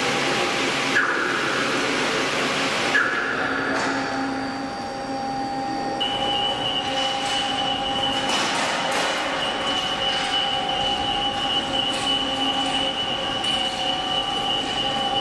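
Electric overhead crane hoist running: a steady motor whine over a machine hum, with a higher tone joining about six seconds in.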